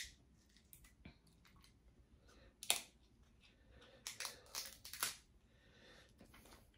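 Snow crab shells being cracked and snapped apart: a sharp crack right at the start, another about two and a half seconds in, and a cluster of crunching cracks between four and five seconds in.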